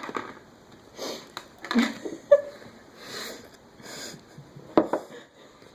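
Short breathy sounds from a person, four of them about a second apart, with a few sharp clicks in between.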